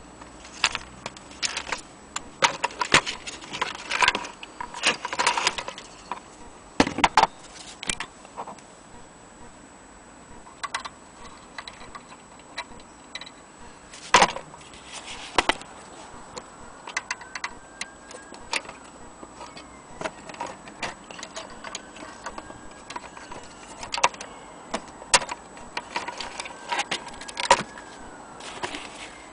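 Brass parts of an antique Gustav Becker Vienna wall-clock movement clinking and knocking as they are handled on a wooden table: irregular metallic clicks and taps, some briefly ringing, in bunches with short pauses.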